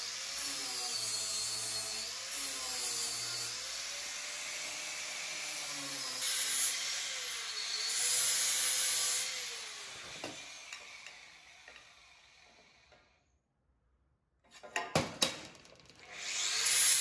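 Small angle grinder with a flap disc sanding a weld bead flat on an aluminium part, its motor pitch dipping and recovering as the disc is pressed on and eased off. About ten seconds in the grinder is switched off and winds down, a few knocks follow, and it starts up again near the end.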